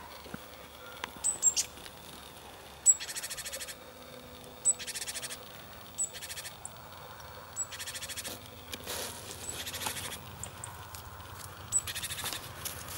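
A small songbird singing: a sharp high note followed by a fast buzzy trill under a second long, repeated about five times.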